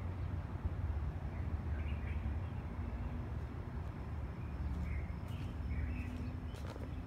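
A few faint bird chirps over a steady low rumble, with a few clicks near the end.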